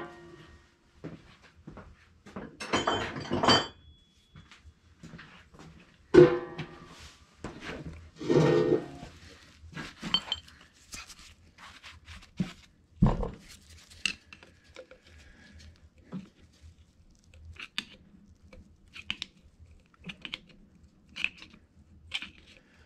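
Screwdriver clinking and scraping against the metal head of an FMC John Bean R10 pump while prying at its valve caps: scattered light clicks and scrapes, with one loud thunk about halfway through.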